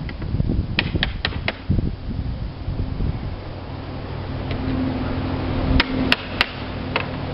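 Sharp clicks, four in quick succession near the start and a few more later, over a steady low mechanical hum that sets in about two seconds in.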